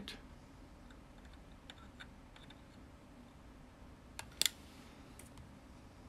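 Faint sharp clicks and taps of metal parts, a PL-259 coax connector and a soldering iron tip, being handled against each other over quiet room tone, with a louder double click about four and a half seconds in.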